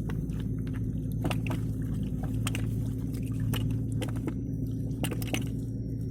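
Wet squelching and splashing with many short sharp clicks, over a steady low mechanical hum.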